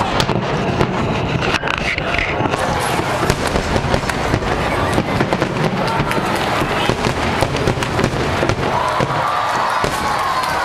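Fireworks going off in quick succession: a dense crackle of many sharp bangs with no break.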